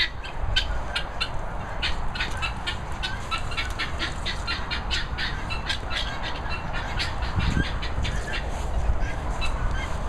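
A group of birds squawking and calling in many short, sharp notes, several a second, over a low rumble on the microphone.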